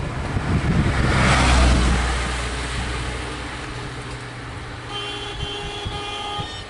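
A small flatbed lorry driving past at close range, its engine and tyre noise swelling to a peak about a second and a half in and then fading as it slows. From about five seconds in, a steady horn tone sounds, held with brief breaks.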